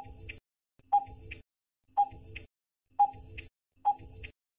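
Quiz countdown timer sound effect: five short ticks, one a second, as the timer counts down from five to one.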